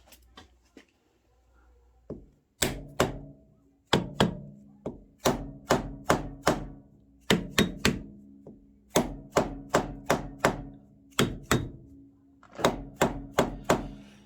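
Hammer tapping on a piece of steel bar stock: about two dozen light blows in short clusters, starting a couple of seconds in, each leaving a brief metallic ring.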